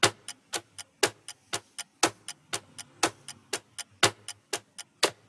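Countdown-timer sound effect of a ticking clock: sharp ticks about four a second, with a louder tick on each second as the count runs down.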